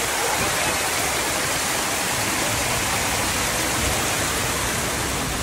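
Water falling steadily from a small waterfall among rocks, an even rushing splash.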